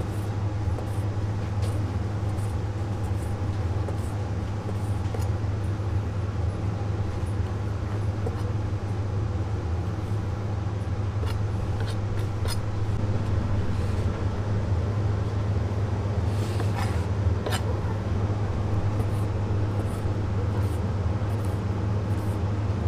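Chef's knife slicing braised pig's trotters on a wooden cutting board: scattered light taps of the blade on the board, a couple of sharper clicks near the end. Under it runs a loud, steady low hum.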